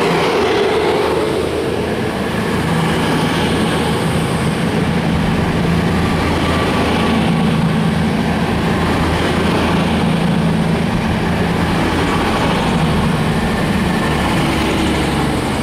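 CrossCountry Class 220 Voyager diesel-electric multiple unit pulling away, its underfloor Cummins diesel engines under power as the cars pass close by. A loud, steady, low engine drone over the rumble of the wheels.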